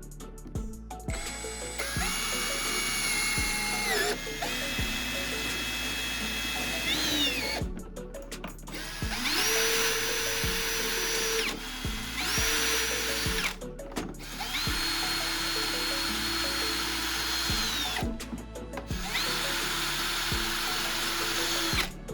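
Handheld electric power tool running in about five separate bursts of a few seconds each. Each time the motor whine spins up to a steady pitch, holds, then winds down.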